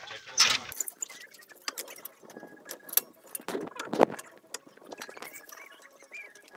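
Irregular metallic clicks and clinks of a wrench working on a car's wheel bolts, the loudest knock about four seconds in.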